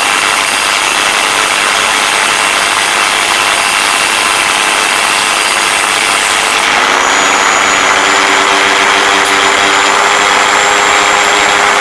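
Parkside PFBS 160 B2 rotary multi-tool running at about 20,000 RPM, its small abrasive cut-off disc grinding through a metal screw held in pliers: a loud steady grinding hiss. A little over halfway the hiss thins and the motor's whine comes through more plainly.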